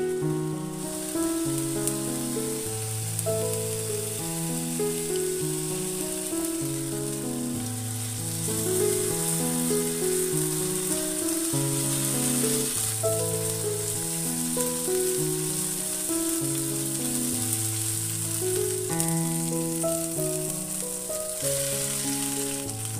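Food frying in oil in a pan, a steady sizzling hiss, under background music with a simple melody and bass line.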